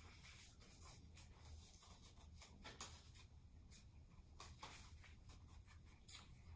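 Faint, scattered snips and paper rustles of scissors cutting construction paper, over a low steady room hum.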